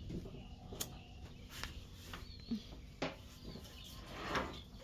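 Scattered clicks and knocks, with a faint bird chirp high up about two seconds in and a short swelling rustle near the end.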